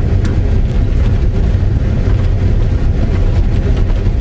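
Car driving on a dirt track, heard from inside the cabin: a steady, loud low rumble of engine and tyres on the rough surface, with a few faint rattles and knocks.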